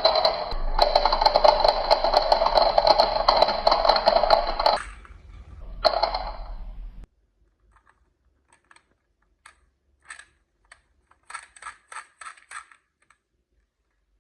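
Marbles rolling fast along a marble run track: a dense, continuous rolling rattle shot through with clicks, which stops about five seconds in, comes back briefly, and cuts off abruptly at about seven seconds. After that, scattered light clicks of marbles tapping against the track and each other.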